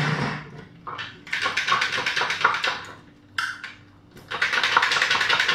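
A personal blender's motor cuts off, then its plastic cup is handled and shaken, with the half-blended chickpeas inside rattling and knocking in bursts of dense clatter.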